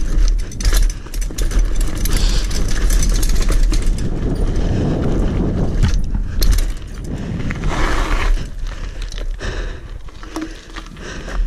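Mountain bike riding fast down a dirt trail and onto a gravel track: tyres running over the ground with frequent rattles and knocks from the bike, and a heavy rumble of wind on the microphone. It gets somewhat quieter from about seven seconds in.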